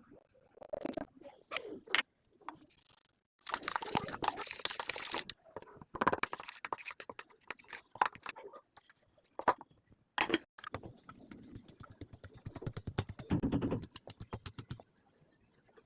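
Food-preparation handling sounds in a kitchen: scattered clicks and knocks, a couple of seconds of rustling or pouring noise a few seconds in, then a fast run of even taps, about ten a second, that stops shortly before the end.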